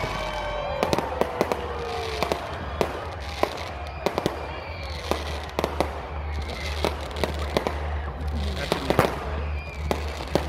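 Fireworks display: a rapid, irregular series of sharp bangs and pops from bursting aerial shells, with a long whistle falling in pitch in the first two seconds.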